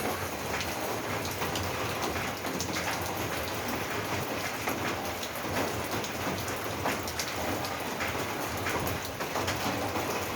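Rain falling on a roof: a steady dense hiss with many separate drop impacts ticking through it.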